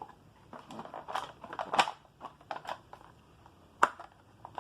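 Plastic snack-cup packaging being handled: a run of irregular crinkles and clicks, with one sharp click near the end.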